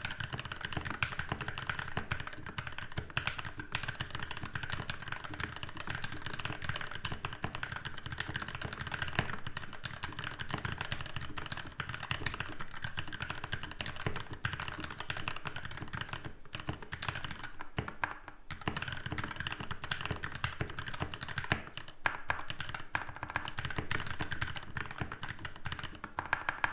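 Modded Anne Pro 2 mechanical keyboard typed on fast and continuously: Gateron Milky Yellow linear switches on a stainless steel plate in a walnut case, with RK61 keycaps, giving a dense stream of key clacks with a brief pause about two-thirds of the way through.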